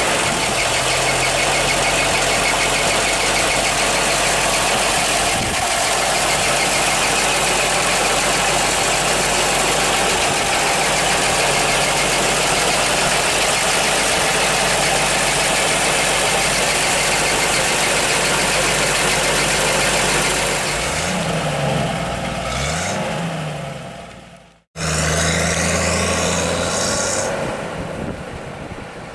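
1974 Toyota Land Cruiser FJ40's straight-six engine idling steadily, then revved up and down a few times. After that the FJ40 pulls away under power and its engine sound fades as it drives off.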